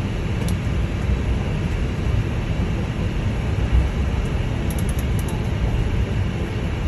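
Steady low rumble and hiss of an Airbus A320 taxiing, heard from inside the cockpit.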